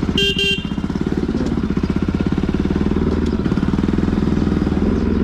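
Motorcycle engine running steadily with an even pulsing beat. Just after the start, two quick toots of a horn.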